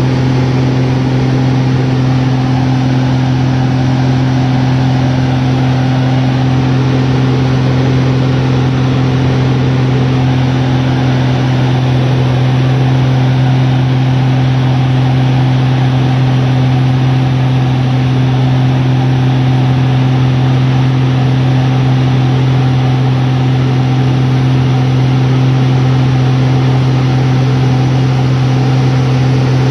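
Aerobatic monoplane's piston engine and propeller running steadily at a constant pitch, heard from inside the cockpit along with airflow noise.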